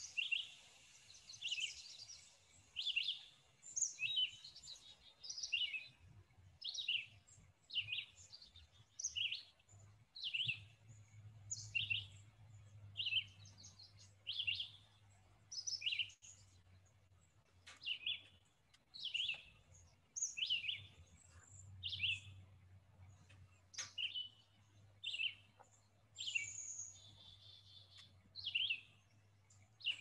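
Red-eyed vireo singing: short, high whistled phrases repeated about every second and a half with brief pauses between them.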